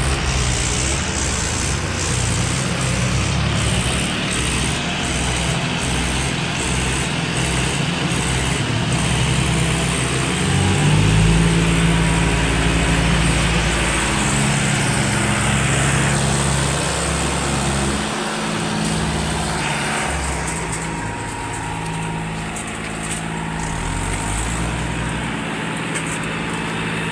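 Two diesel tractors, a John Deere 5045D and a Mahindra 415 DI, running hard under load while pulling on a rope. A rear tyre spins in loose dirt. The engines get louder about a third of the way in.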